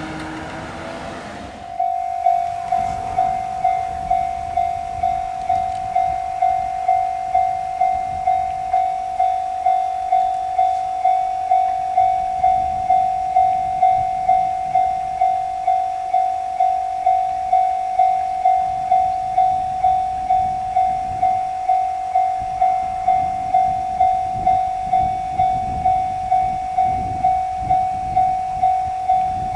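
Japanese railroad crossing's electronic warning bell starting about two seconds in and ringing a steady, evenly repeating 'kan-kan' ding, about one and a half dings a second. It signals that the crossing is closing for an approaching train.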